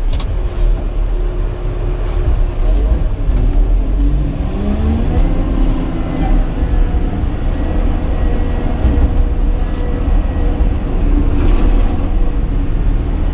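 Caterpillar 120K motor grader's diesel engine running steadily, heard from inside the cab, with a rising whine about four to five seconds in.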